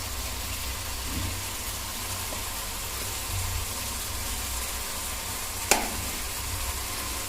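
Onion and tomato masala sizzling steadily in a pan as it fries, with one sharp click about two-thirds of the way through.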